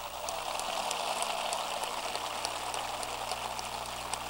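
Audience applauding: a dense spatter of hand claps that swells over the first second and then holds steady.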